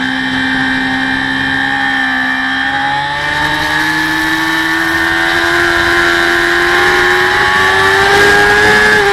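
Racing motorcycle engine at high revs from an onboard camera, held steady for about three seconds, then rising slowly in pitch as the bike accelerates. Wind hiss on the microphone grows as it speeds up.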